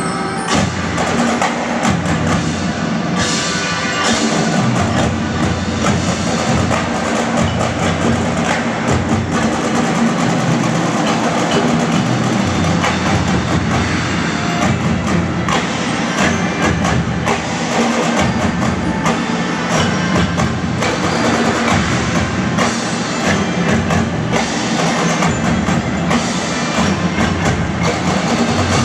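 A marching drum band playing, its marching drums beating a busy, dense rhythm under the rest of the band.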